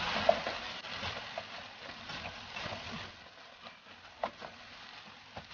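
Fried rice sizzling in a hot pan as it is stirred, with scattered clicks and scrapes of the spatula against the pan; the sizzle gradually fades.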